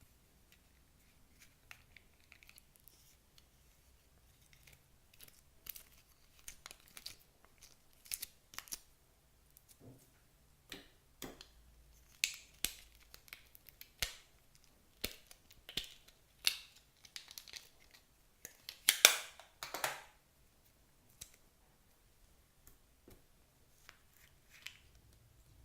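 Clear slime being worked by hand, giving irregular sharp pops and crackles. A louder cluster of crackling comes about three-quarters of the way through.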